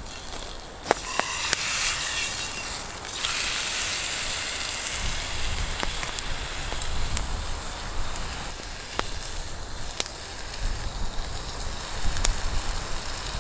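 Raw steak laid into a hot oiled frying pan over a wood campfire: a loud sizzle flares up about a second in and settles after a couple of seconds into a steady sizzle, with the fire crackling and popping now and then.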